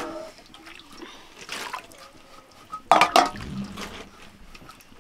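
Water splashing and dripping in small, irregular bits as boiled eggs are handled in water for peeling, with a sharper clatter about three seconds in.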